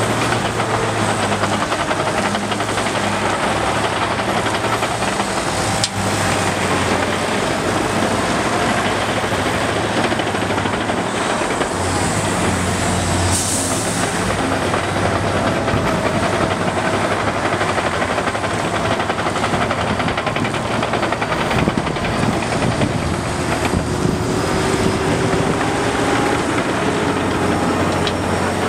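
Liebherr R 926 crawler excavator's diesel engine running under changing load as it digs and swings, with a faint wavering hydraulic whine and a brief hiss about halfway through.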